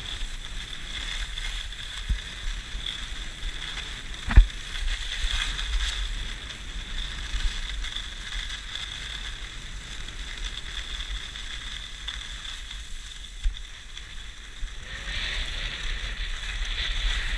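Rossignol skis sliding and scraping over groomed hardpacked snow, a steady hiss that is loudest near the start and again near the end, with wind rumbling on the camera microphone. One sharp knock about four seconds in.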